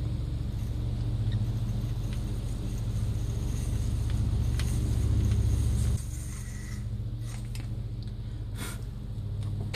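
A drill runs with a steady hum as it bores a pilot hole into the end grain of a hardwood dowel. About six seconds in, the hum drops suddenly as the bit comes out of the hole, followed by a few light clicks.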